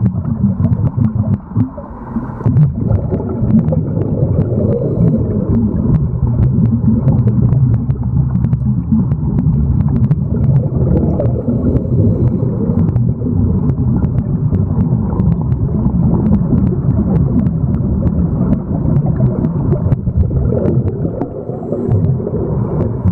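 Muffled underwater rumble and gurgling with many small clicks scattered through it, dipping briefly about two seconds in and again near the end.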